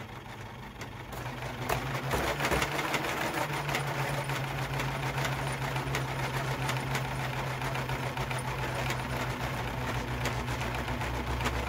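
3D-printed pulse motor with coupled plastic cones spinning, giving a steady hum over a fast rattling clatter from the cones cogging and the base vibrating. It builds up over the first couple of seconds, then runs evenly; it is being run in its non-preferred direction, where it will not fall into sync.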